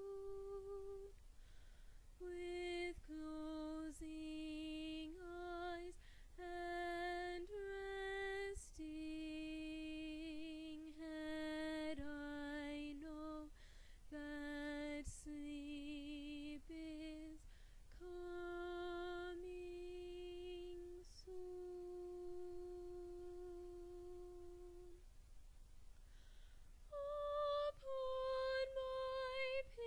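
A solo female soprano voice singing unaccompanied in slow, long-held notes with a light vibrato, phrases separated by short breaths. It pauses for a couple of seconds about two-thirds of the way through, then comes back on higher notes near the end.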